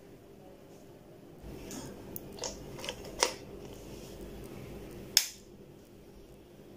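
Plastic power adapter being handled and pushed into a wall socket with scraping and a few sharp clicks, then one loud click about five seconds in as the wall socket's switch is flipped on to power the LED strip.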